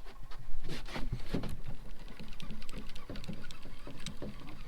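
Irregular splashing and knocking as a hooked catfish thrashes at the surface while being reeled in to the boat, loudest about a second in.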